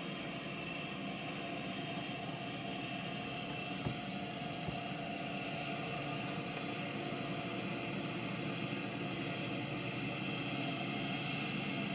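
Large diesel farm machinery running steadily at harvest, with a steady engine hum that grows slightly louder. Two faint knocks come about four seconds in.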